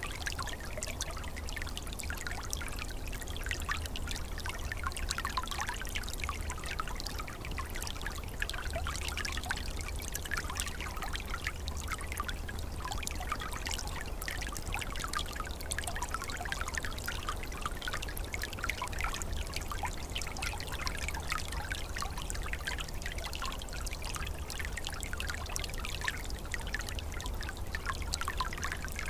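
Small winter forest stream flowing steadily, with a dense, even patter of trickling and splashing water.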